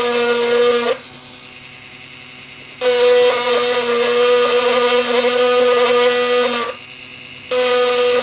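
HERZO cordless mini rotary tool running at 15,000 RPM, engraving an aluminum laptop case through a stencil. It gives a steady whine that stops about a second in, starts again about three seconds in, runs for about four seconds, then stops and starts once more near the end.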